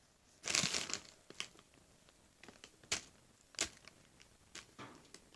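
A small lump of homemade fake snow, a damp mix of baking soda, salt and water, crunching as it is squeezed and rubbed between fingertips. There is a short crunchy rustle about half a second in, then scattered faint crackles and clicks.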